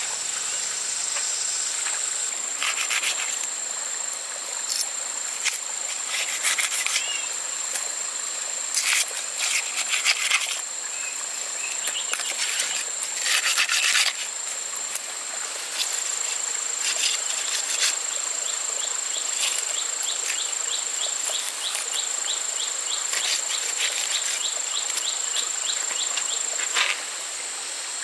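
Insects calling in chorus, a steady high-pitched drone with louder bursts of buzzing chirps now and then and a run of quick ticking calls in the second half. The drone cuts off suddenly about a second before the end.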